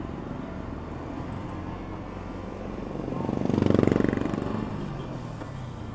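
Motorcycle riding noise from a Yamaha XSR155's single-cylinder engine and the wind, steady, with an engine sound that grows louder and fades again between about three and five seconds in.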